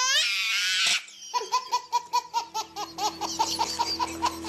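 A young child squeals high at the start, then laughs in a quick run of short giggles, about five or six a second.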